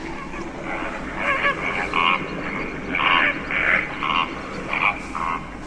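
Recorded lesser flamingo calls played from an exhibit's small push-button speaker: a series of short, repeated calls, starting about a second in.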